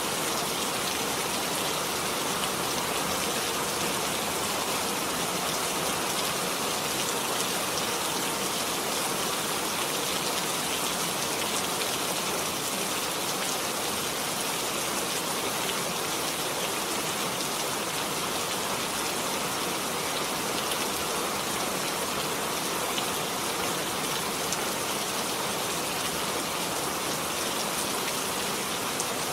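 Steady rain falling, an even hiss of many drops striking a surface with fine individual patters.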